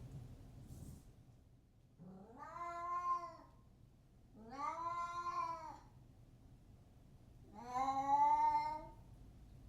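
Domestic cat meowing three times, each a long drawn-out meow of over a second that rises in pitch at the start and then holds. The third meow is the loudest.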